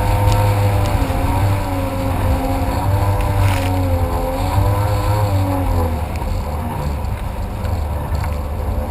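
Jet ski engine running under way, its pitch wavering up and down over a heavy low rumble; the engine note fades about six seconds in, leaving mostly the rumble.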